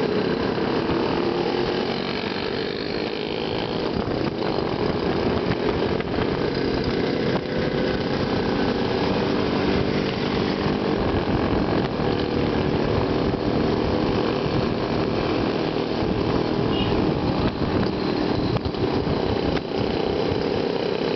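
Two-stroke Yezdi and Jawa motorcycle engines running steadily while riding in a group, the engine note drifting gently up and down.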